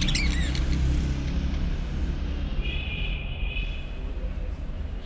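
Steady low rumble of a vehicle or street traffic, with a brief high steady tone a little over halfway through.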